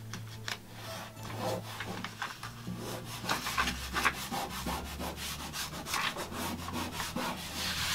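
Hands rubbing and pressing a self-adhesive mounting plate and its paper backing onto a painted wall: a run of short scraping rubs, busier in the second half.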